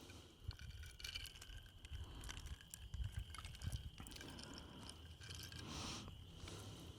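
Faint steady high-pitched insect trill, with scattered small clicks and scrapes and a low rumble underneath.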